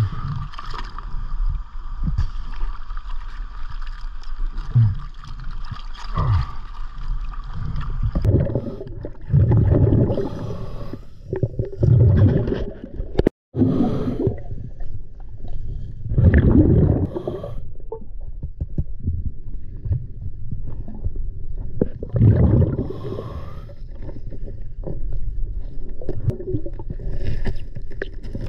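Scuba diver breathing underwater through a regulator: exhaled bubbles rumble out in surges every few seconds over a constant rush of river water.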